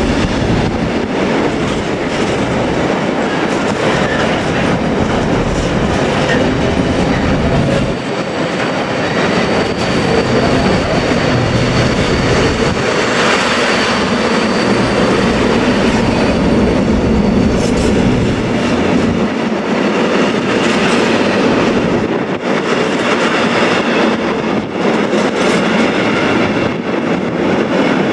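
Container freight train passing close by: loaded container flat wagons rolling past in a steady, loud rumble and clatter of wheels on the rails.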